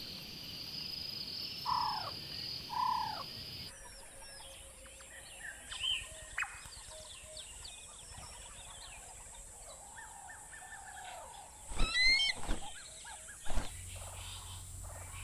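Wild birds calling and chirping over a quiet outdoor background. Two arched calls come early, then scattered short chirps and whistles, and a louder stacked call about 12 seconds in. The background changes abruptly twice, as between different recordings.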